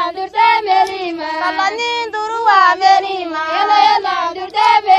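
A high voice singing a song, the melody bending up and down in short phrases, with a steady held tone beneath it from about halfway through.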